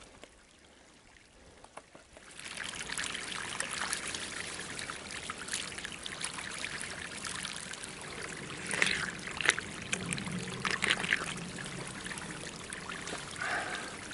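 Meltwater trickling and running over a granite rock slab, starting about two seconds in. There are a few louder splashy moments near the middle, where a climber drinks with his mouth at the flow.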